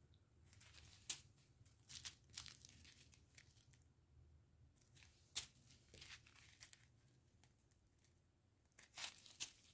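Small plastic zip-lock bags of diamond painting drills crinkling faintly as they are handled, in short scattered rustles.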